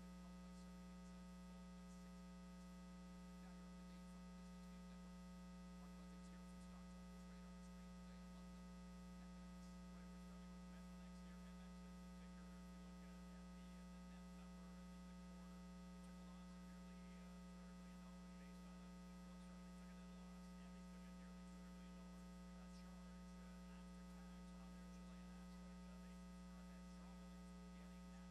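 Near silence apart from a steady low electrical hum with a ladder of overtones.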